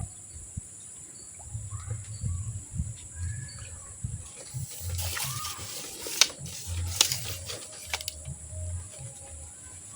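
Swamp ambience: a steady high insect drone with a few short bird chirps over an uneven low rumble. Two sharp clicks stand out about six and seven seconds in.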